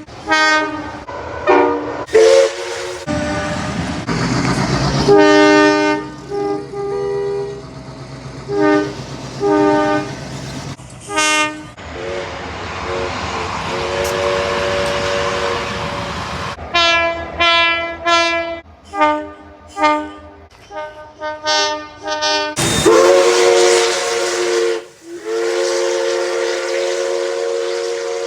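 Train horns sounding a series of blasts: chords of several notes, some short toots and some held, with a quick run of short blasts past the middle and a long held chord near the end. Train running noise fills the gaps between blasts.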